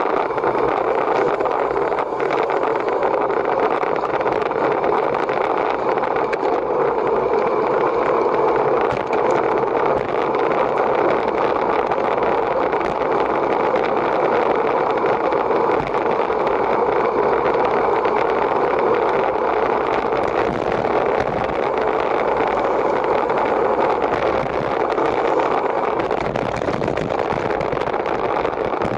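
Steady rush of wind and tyre noise from a racing bicycle moving at speed, with wind blowing on the microphone.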